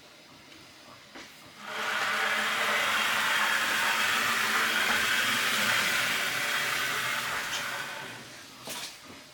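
A small motor, such as a power tool, runs steadily for about six seconds. It starts a little under two seconds in and dies away near the end, with a click just after.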